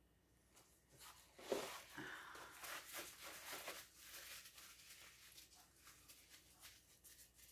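Faint rustling and rubbing of nitrile-gloved hands being wiped and rubbed together, with small crinkles and clicks. It is loudest for a few seconds starting about a second in, then fades to a light rustle.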